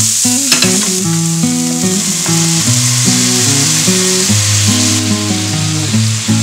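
Shimeji mushrooms sizzling steadily in a hot nonstick frying pan, with a spatula scraping and stirring them early on and a few sharp clicks about half a second in. Background music plays under the sizzle.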